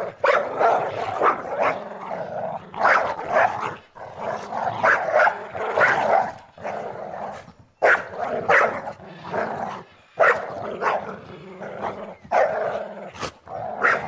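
Dogs growling and barking in a rough play fight, in quick clusters of snarls and barks with short pauses between them.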